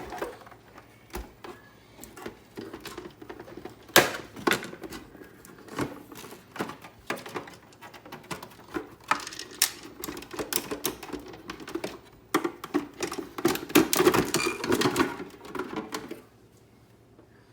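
Hard plastic parts of a Keurig coffee maker clicking, knocking and rattling as the machine is taken apart by hand. There is a sharp knock about four seconds in, and a busier stretch of clattering in the second half.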